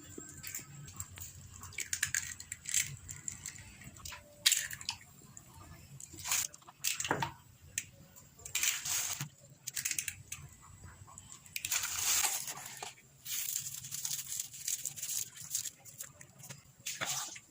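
Kitchen food-preparation sounds: irregular short bursts of scraping and crackling, with a few sharp clicks.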